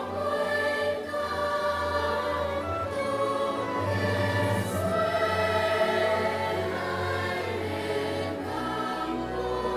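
Music of choir voices singing long held chords over a low bass note, which changes pitch about eight and a half seconds in.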